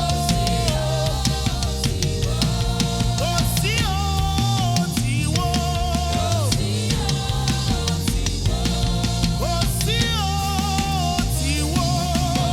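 Live church band playing an instrumental stretch: drum kit with bass drum and snare keeping a steady beat under a bass line, with a melody of held notes that slide up and down between pitches.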